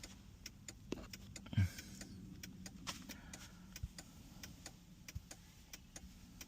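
A car's hazard-light flasher ticking steadily and rapidly over a faint low hum, with one soft thump about a second and a half in.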